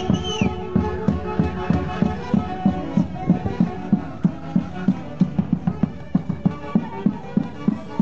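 Live Andean folk orchestra playing a dance tune for the Santiago festival: sustained wind-instrument melody over a steady low beat of about three strokes a second. A brief high glide sounds right at the start.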